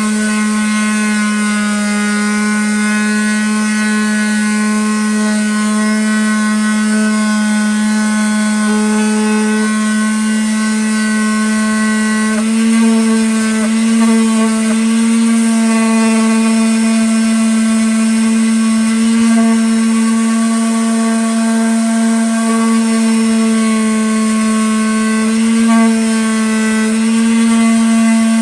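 Electric power sander running steadily against an ash wood round, a constant motor hum with a rasping edge; its pitch shifts slightly about halfway through and again near the end.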